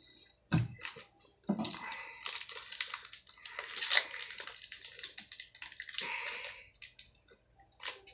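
Foil wrapper of a Panini Contenders football card pack crinkling and tearing as it is pulled open by hand, after a light knock about half a second in. The crackling runs in quick bursts and stops about a second before the end.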